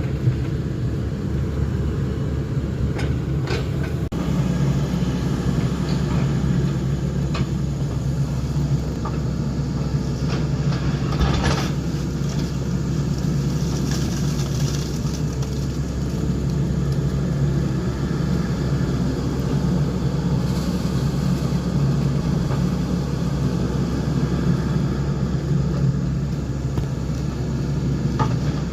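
Diesel engine of heavy earthmoving equipment running steadily, with a few clanks.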